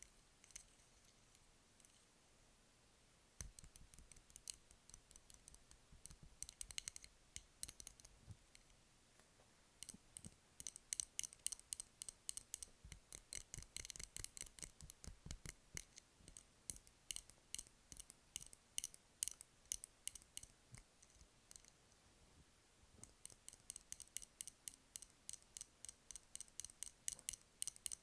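Rapid light tapping on candles, in quick runs of several taps a second with short pauses between runs, starting a few seconds in.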